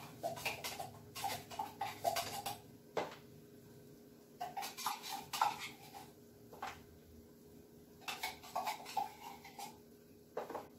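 Metal kitchen utensils clicking and clinking against cans and a plastic container, in quick bunches of clicks with short pauses between them.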